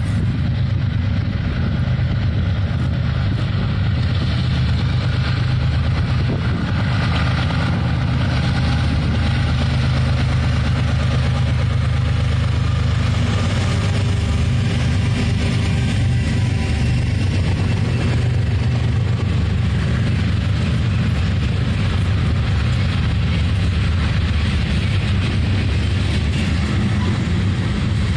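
A freight train led by BNSF diesel locomotives approaching and passing at close range, followed by tank cars rolling by on the rails. A heavy, steady low rumble runs throughout.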